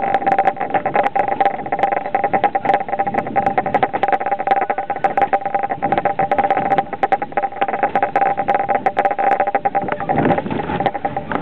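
Narrow-gauge train running along the track: wheels rattling and clicking over the rails, with a steady whine.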